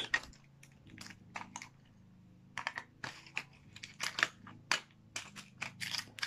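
Hands handling the plastic parts and battery pack of an opened suitcase record player: irregular clicks, taps and rustles, sparse at first and busier from about halfway.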